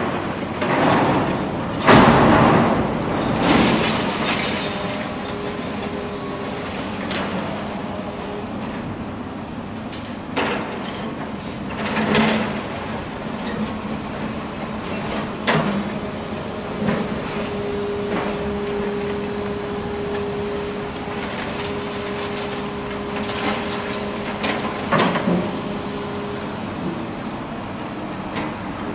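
Excavator grapple breaking up a concrete block wall: several heavy crashes of block and rubble about one to four seconds in, then scattered sharp knocks and clanks of debris over a steady rumble of machinery and traffic. A steady hum joins in for several seconds in the second half.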